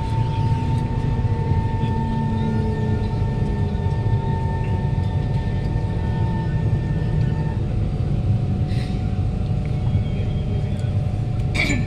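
Kawasaki C151 train's GTO-VVVF traction motors whining under electric braking into a station, a motor the owner calls strong. The whine's tones slide down and die away about seven and a half seconds in as the train stops, over a steady low rumble from the car. A sharp knock comes near the end.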